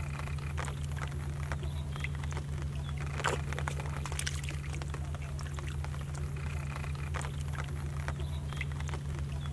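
Fish splashing and thrashing in a shallow, muddy water hole, with scattered small splashes and a sharper one about three seconds in, over a steady low hum.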